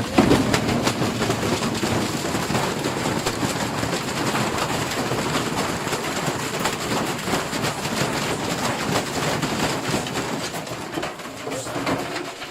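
Washing machine being wrecked: a continuous loud clattering and banging of many rapid metal knocks, starting and stopping abruptly.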